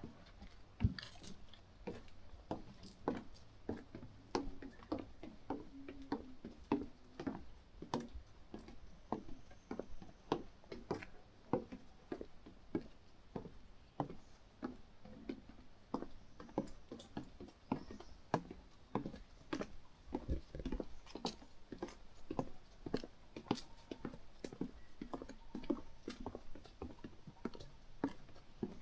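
Footsteps of a hiker walking along a mountain trail, an even run of short scuffing knocks at about two steps a second.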